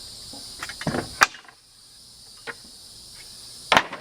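Sharp cracks and knocks of pallet wood as a board is pried off with a steel pallet-dismantling tool: two loud cracks, a little after a second in and near the end, with lighter knocks between. Crickets chirp steadily underneath.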